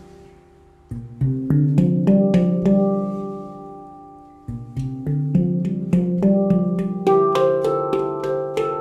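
A 14-note D Low Kurd handpan in Ember Steel being played by hand: single struck notes ring out and overlap. The notes start about a second in, fade during a brief pause in the middle, then come quicker and denser near the end.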